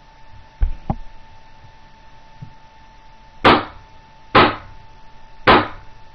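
Automag paintball marker with an LVL10 bolt kit firing on compressed air, three sharp pops about a second apart, after a couple of low knocks from handling it near the start.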